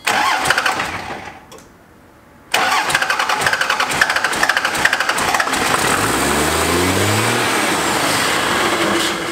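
First-generation Dodge Ram's 12-valve Cummins diesel being cranked by the starter, with a short pause, then catching about six seconds in and revving straight up into a loud, steady high-rpm run instead of settling to idle. The rebuilt injection pump is overfueling at idle, around 4,000 rpm, which the owner takes for an excessive high idle rather than a true runaway.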